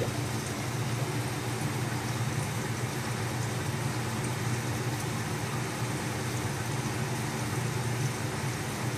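Steady low mechanical hum with an even hiss and no breaks, the running noise of aquarium equipment such as pumps and filters.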